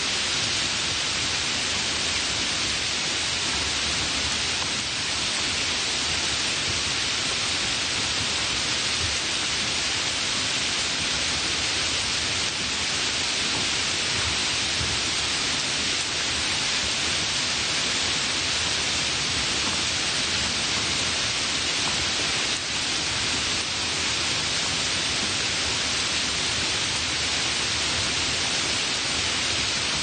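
Light rain falling as a steady, even hiss, with no separate drops standing out.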